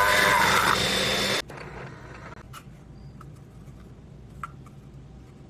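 Milling machine running an end mill: a loud rushing noise with a steady high whine that cuts off abruptly about one and a half seconds in. After that come faint scattered ticks and clicks.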